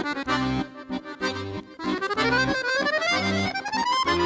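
Accordion music: a melody climbing in a long rising run over a regular accompaniment of low bass notes alternating with chords.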